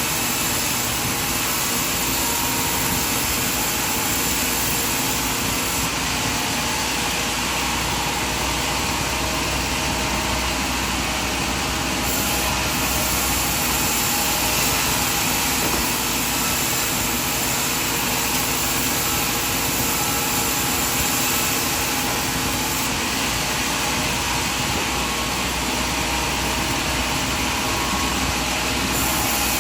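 Sawmill machinery running steadily: a constant, even mechanical noise with no pauses or separate impacts.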